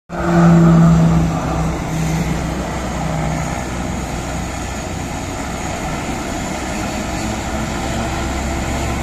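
Turboprop aircraft engines running: a loud steady hum for the first second or so that fades out by about three seconds in, over a steady low engine rumble.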